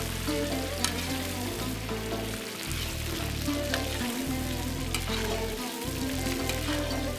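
Meat frying in hot rendered lamb fat in a kazan, sizzling and crackling steadily, with background music underneath.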